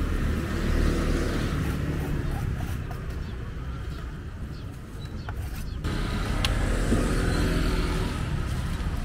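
Street traffic: motor vehicle engines running, with people's voices in the background. The sound changes abruptly about six seconds in.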